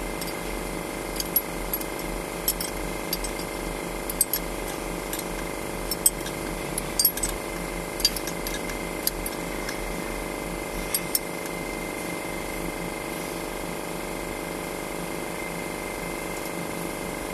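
Sharp metallic clicks and clinks of hand tools on engine fittings while diesel injection pump lines are fitted, about a dozen scattered over the first eleven seconds, then stopping. A steady hum runs underneath throughout.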